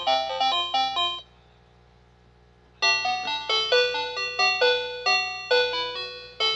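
Toy telephone playing a quick electronic chiming melody of short bell-like notes; it stops for about a second and a half just over a second in, then starts a new tune.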